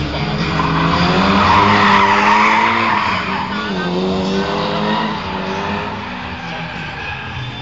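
Nissan drift car sliding through a cone course: tyres skidding, with the engine revving up and down under the slide. The skid is loudest in the first few seconds and fades off after about five seconds.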